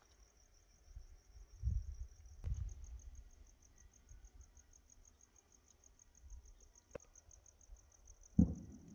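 Crickets chirping steadily in an evenly pulsed, high trill. Under it come two short low rumbles about two seconds in and a sudden, louder low boom near the end that dies away slowly.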